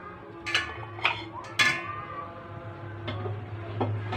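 Metal cookware clinking and clanking as a pot is handled: about five knocks, the loudest with a ringing metallic tone about a second and a half in.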